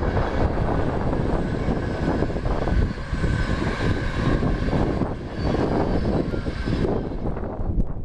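A train passing at speed, a steady whine over a loud rushing noise that fades away about seven seconds in, with wind buffeting the microphone.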